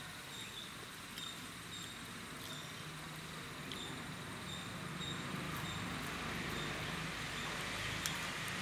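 Steady outdoor background noise that slowly grows louder, with faint high-pitched chirps coming and going.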